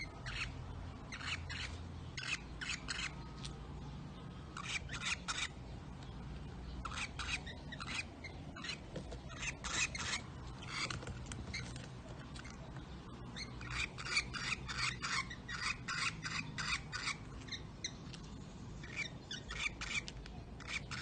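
Lovebirds chattering in harsh, raspy clicks and chirps, in short bursts every second or two, with a longer run of chatter about two-thirds of the way through.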